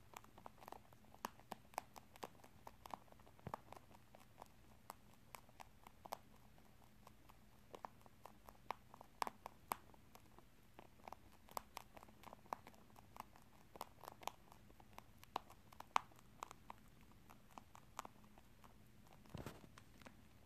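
Rabbit crunching on dried corn and rice puff snacks: a long run of small, crisp, irregular crunches, several a second, with a brief low rustle near the end.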